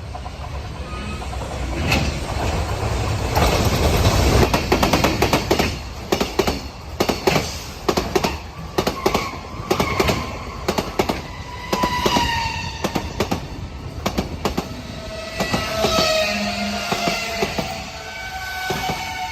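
Freight train passing close by: a dense run of clacks as the wagons' wheels cross the rail joints, loudest about four seconds in, with high squealing tones from the wheels in the second half.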